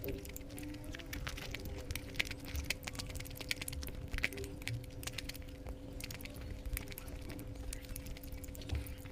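Close-miked eating sounds: wet chewing and lip-smacking mouth clicks, frequent and irregular, from someone eating egg curry with rice, over a faint steady hum.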